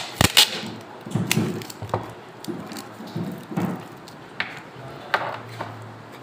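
Tape being pulled from a roll and wound around a spliced cable, giving scattered rustling and crackling as it is handled. There are a couple of sharp knocks in the first half-second.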